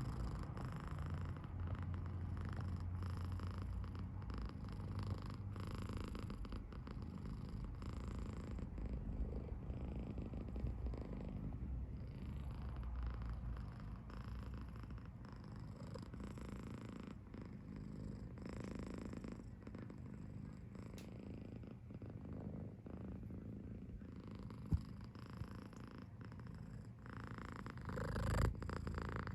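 British Shorthair kitten purring steadily, a snore-like rumble that is a sign of contentment. A sharp click about two-thirds of the way through and a brief louder burst near the end.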